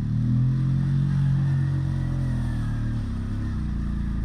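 ATV (quad bike) engine running under throttle as the machine pulls through wet snow, its pitch stepping up just after the start, holding steady, then easing off about three seconds in.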